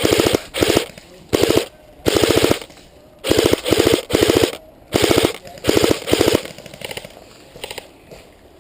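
Airsoft electric gun firing in rapid full-auto bursts: about ten short bursts of quick clacking shots, each well under a second, then a few lighter single shots near the end.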